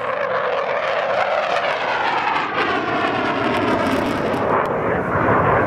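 Saab J35 Draken jet fighter flying past in a display: steady jet engine noise with a whine that falls steadily in pitch over a few seconds as it passes.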